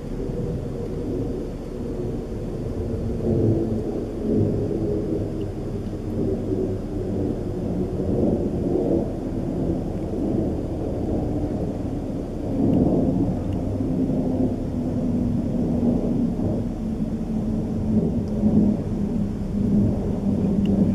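Low, wavering rumble of a Boeing 747-400 airliner's four jet engines heard from far below as it cruises high overhead, swelling and fading unevenly.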